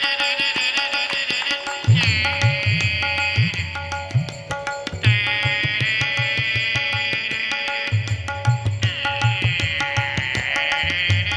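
A shehnai (sanai) melody played with the nose instead of the instrument: a sustained, reedy tone that bends and slides between notes over a steady drone. A hand-drum rhythm comes in about two seconds in.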